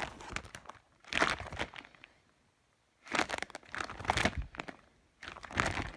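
Clear plastic binder sleeves holding trading cards crinkling as they are handled, in four separate bursts with a short quiet stretch in the middle.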